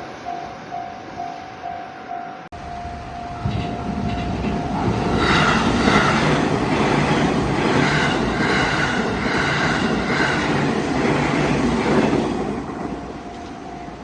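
Japanese railway level-crossing alarm ringing its pulsed "kan-kan" tone at about two beats a second. About 2.5 seconds in, the sound cuts abruptly to a steadier alarm tone. A train then passes over the crossing for about seven seconds, its rumble and wheel noise drowning the alarm, which is heard again as the train fades.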